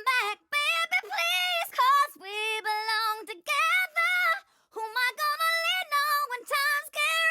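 A solo high female voice singing short, wordless, gliding vocal runs in a high register, with brief pauses between phrases and no accompaniment.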